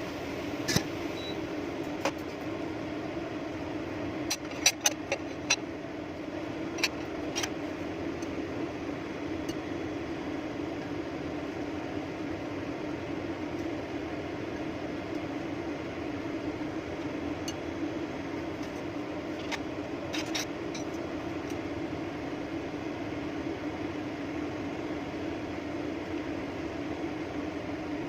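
Steady low mechanical hum, like a fan or small motor running, with a few sharp clicks and taps in the first eight seconds and again around twenty seconds in.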